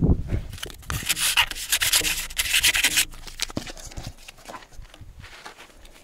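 A hand rubbing a sticker flat onto the surface of a sign, a fast run of scraping rubs for about two seconds that tail off into a few weaker strokes.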